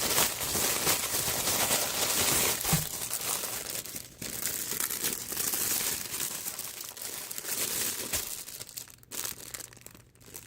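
Plastic packaging crinkling as wrapped merchandise is handled and unwrapped, busier for the first four seconds or so and quieter after.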